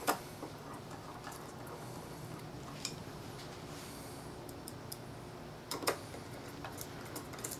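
A few faint, scattered metallic clicks and taps of a screwdriver turning small retaining screws into a saw spine, the loudest a little before six seconds in.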